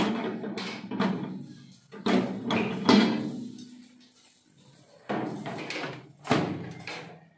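A series of about six sharp knocks and clatters, each starting suddenly and ringing away within about a second.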